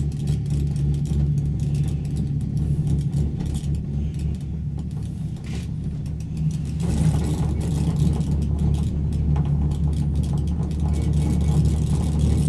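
Steady low rumble inside a moving ski-lift gondola cabin as it runs along the cable. It grows louder and rougher about seven seconds in.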